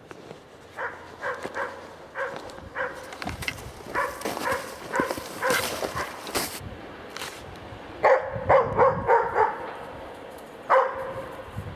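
Hunting dog bay-barking at a wounded wild boar, short barks in quick runs that mark the dog holding the boar at bay; the loudest run comes about eight seconds in, with a single bark near the end. Footsteps crunch through crusted snow and dry brush between the barks.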